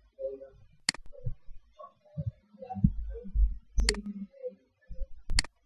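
Computer mouse buttons clicking: a single click about a second in, then quick double-clicks near four seconds and again near the end, with faint low muffled sounds in between.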